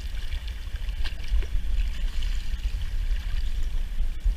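Water splashing and trickling as a rainbow trout thrashes at the surface and is scooped into a landing net, over a steady low rumble.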